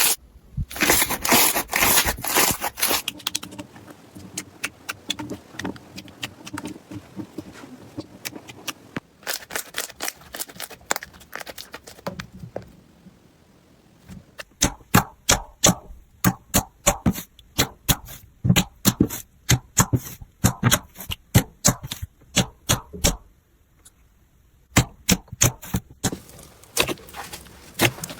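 Slime being squeezed, poked and pressed by hand, giving runs of sharp crackling pops and clicks, with a short lull about halfway through.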